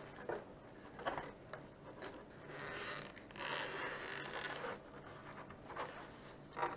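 Clear protective overspray film being peeled off a painted polycarbonate RC truck body, crackling and rustling in several short pulls.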